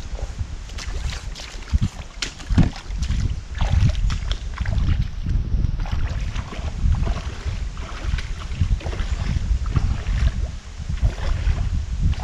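Wind buffeting the microphone with a steady low rumble, over irregular steps knocking on creek stones and splashing as someone wades away through shallow water. The steps are most frequent in the first few seconds.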